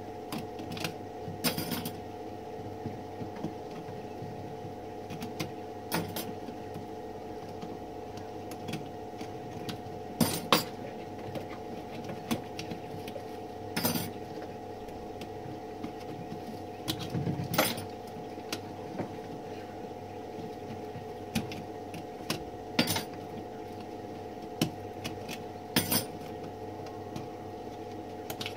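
Small metal typewriter parts clinking and tapping at irregular intervals as they are handled and taken off, over a steady low hum.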